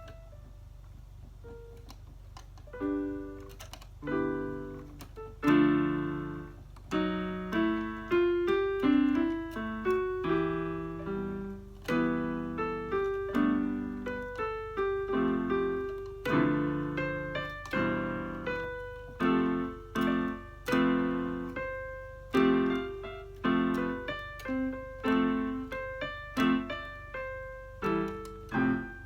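Electronic keyboard played freely, with chords and single notes struck in an uneven, improvised rhythm. It starts after about three quiet seconds. A steady low hum runs underneath.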